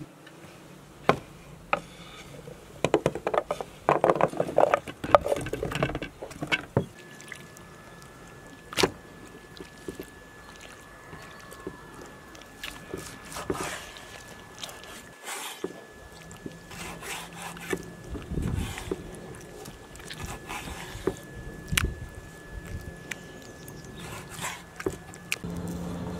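Kitchen knife chopping and slicing on a wooden cutting board, the blade knocking against the board at irregular intervals as carrots and then cow tripe are cut.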